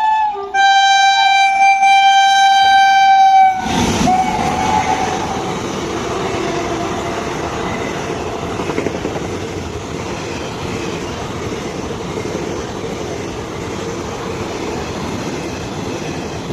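A train's horn blows one long, high-pitched note, broken briefly just after the start, and stops about three and a half seconds in. As it stops, the train reaches the microphone in a sudden rush, followed by the steady noise of its wheels running over the rails as it passes.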